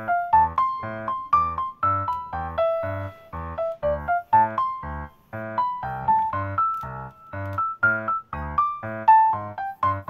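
Background piano music: a steady run of short, evenly paced notes, a melody over low bass notes.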